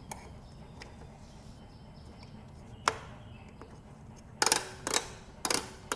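A single sharp click, then a run of short knocks about twice a second near the end, over a faint background.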